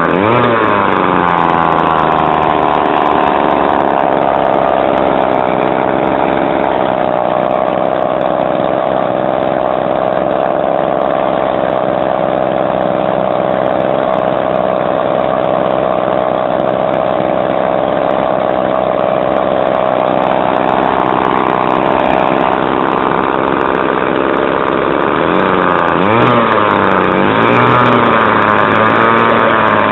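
Customised Weed Eater HP-22 two-stroke trimmer engine running loud on a bench, its pitch falling and settling in the first couple of seconds. It then holds a steady speed, and near the end the revs rise and waver up and down.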